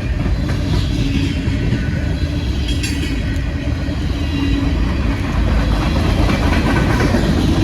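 Freight train cars, a cut of grain hoppers, rolling past: a steady rumble and clatter of steel wheels on rail, getting slightly louder about five seconds in.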